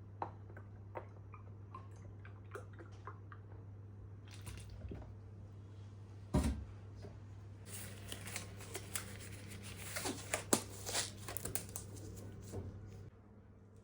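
Kitchen food-preparation handling sounds: scattered small clicks and taps, a single thump about six seconds in, then a stretch of rustling and crinkling with quick clicks, over a steady low hum.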